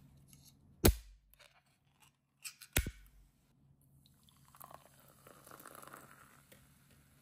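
A can of orange soda cracked open by its pull tab with a sharp snap, a second click about two seconds later, then the soda poured into a glass, splashing and fizzing.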